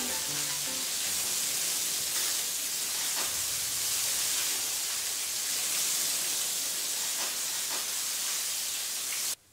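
Water spraying from a hose onto a tiled floor: a steady hiss that cuts off suddenly near the end.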